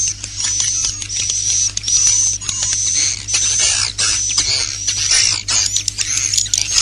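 Edible-nest swiftlets chattering in rapid, high-pitched twittering calls, one after another with short clicks among them, over a faint steady low hum. These are the roosting ('inap') calls that swiftlet farmers play inside nest houses to get the birds to settle and roost.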